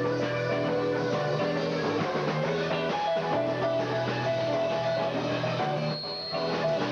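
Live rock band playing an instrumental passage: electric guitars carrying melodic lines over bass and drum kit, with no singing.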